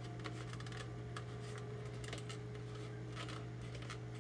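A rag rubbing and wiping over a plastic Stormtrooper armor piece, working dark weathering paint back so it sits like dirt: irregular soft scratches and rustles, over a steady low hum.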